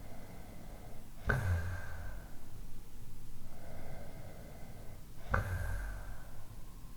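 A person snoring: two snores about four seconds apart, each starting sharply and trailing into a low rumble for about a second, with a softer breath before each.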